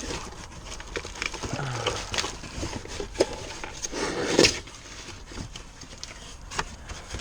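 Handling noises: irregular clicks, knocks and rattles as parts are moved about, with one louder clunk about four and a half seconds in.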